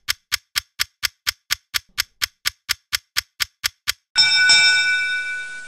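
Ticking-clock timer sound effect, about four ticks a second for some four seconds, then a bright bell chime that rings out: a countdown running down and ending.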